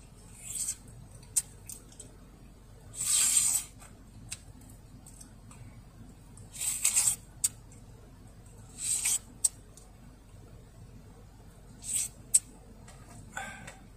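A person eating a juicy slice of melon off the rind: about five short, wet slurping bites spaced a few seconds apart, with small lip smacks in between.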